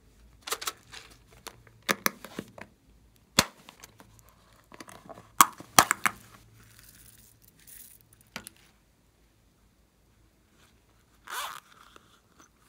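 Hard plastic lids clicking and snapping open and shut, with glitter and sequins rattling as they are shaken out. Near the end a zipper on a small pouch is pulled open in one half-second stroke.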